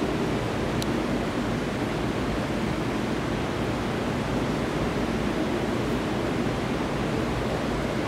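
Steady rushing background noise that stays even throughout, with one brief faint high chirp about a second in.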